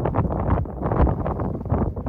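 Wind buffeting the microphone: a loud, uneven noise without any steady tone.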